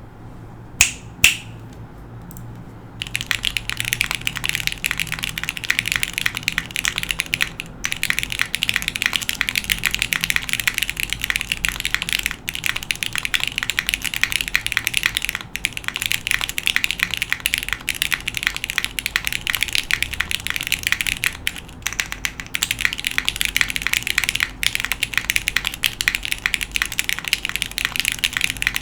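Typing on a gasket-mounted SingaKBD Kohaku custom mechanical keyboard with lubed Cherry MX Hyperglide Red linear switches, an aluminium leaf-spring plate and GMK keycaps. Two single keystrokes near the start, then fast continuous typing from about three seconds in, with a few short breaks.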